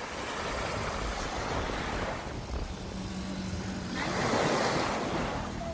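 Sea waves breaking and washing in, two surges about four seconds apart, with wind buffeting the microphone.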